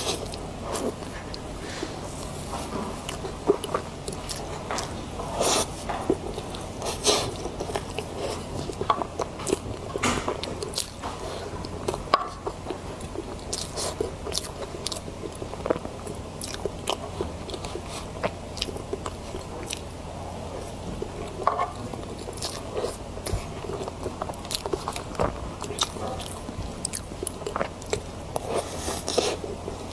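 Close-miked eating: a person biting and chewing food, with sharp crunchy clicks scattered throughout, over a steady low hum.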